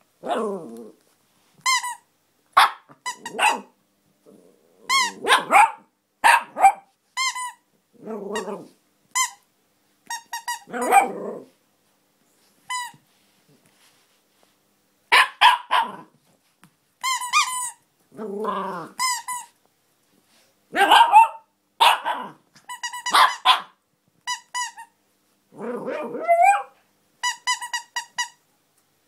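A small dog barks in short bursts at a plush squeaky toy, which squeaks again and again in quick runs of short, high, even-pitched squeaks between the barks.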